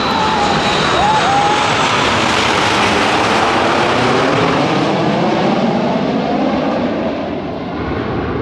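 Loud jet noise of a Boeing 787 and a formation of small aerobatic jets flying low overhead, a dense roar that swells over the first second and then holds steady.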